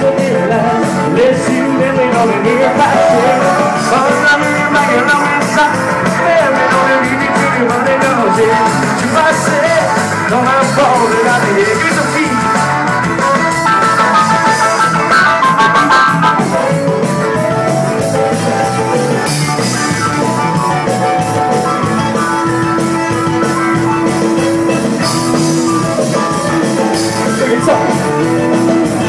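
A live band plays loud and steady: a button accordion, electric guitar and drum kit. A note is held for several seconds near the end.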